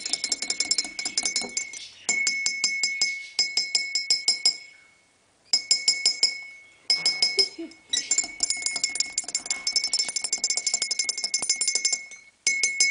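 Rapid clinking on a coffee cup, about eight strikes a second, with the cup ringing a steady tone. The clinking comes in runs of one to four seconds, broken by short pauses.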